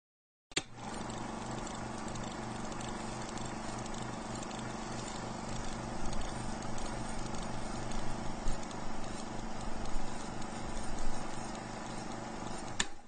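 Steady, rhythmic mechanical clatter that starts with a click about half a second in and cuts off with another click just before the end.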